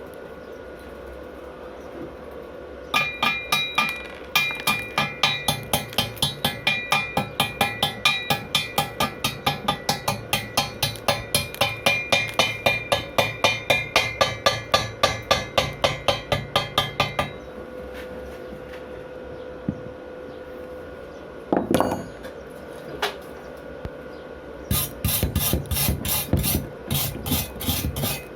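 Slag being chipped off a fresh rutile-electrode weld seam with a hammer: a run of ringing metal strokes, about three a second, for some fourteen seconds, then a pause with a single knock, and the strokes starting again near the end.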